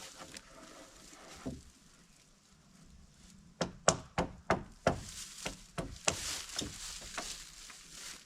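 Wood being struck hard: one knock, then a run of about ten sharp blows in quick succession starting about three and a half seconds in, as a floorboard is knocked into place on the floor frame.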